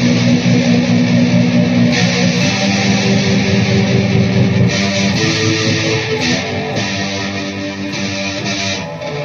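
Electric guitar played through a Peavey VYPYR X2 amplifier with a distorted tone, strummed chords ringing out and changing every second or few.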